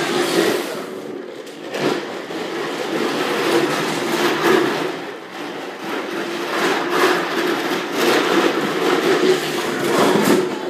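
Plastic wheels of a Huffy Green Machine ride-on trike rolling and grinding across a hard tile floor, a continuous rumble that surges and eases as the trike speeds up and slows.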